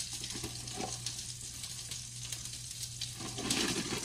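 Hot dogs sizzling in olive oil in a frying pan, a steady fine crackle, with a louder rustle near the end.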